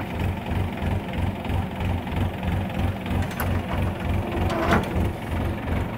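Tractor diesel engine idling, with an even low pulse about three times a second.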